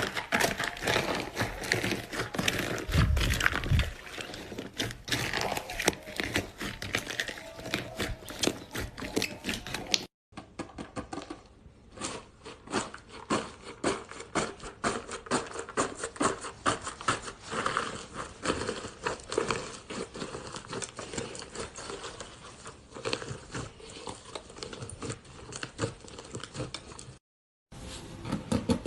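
Iceberg slime being squeezed and poked by hand: dense, irregular crunchy crackling and popping as the hardened crust breaks up. The sound cuts out briefly about ten seconds in and again near the end, where one clip gives way to the next.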